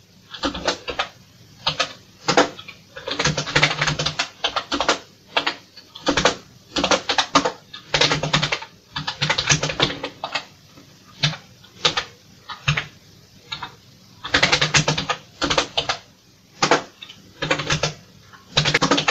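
Typing on a computer keyboard: keystrokes clicking in quick runs separated by short pauses.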